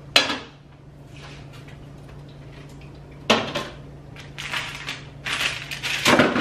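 Knocks and clatter of grocery items and containers being set down and moved around on refrigerator shelves: one sharp knock at the start, another about three seconds in, and a run of clattering near the end, over a low steady hum.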